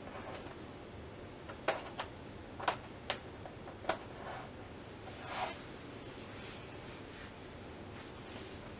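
Hands handling the edge of a TV's LCD panel: about five light, sharp clicks over two seconds, then a short rustle.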